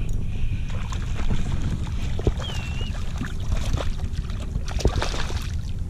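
Water splashing and sloshing at the side of a kayak as a small hooked redfish is brought in, with scattered clicks and knocks and a steady low rumble. A brief high chirp comes about two and a half seconds in.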